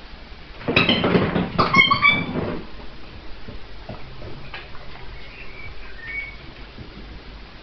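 Puppy playing with a toy: a burst of clattering and scuffling about a second long, with short high squeaks on top, then a couple of faint squeaks later.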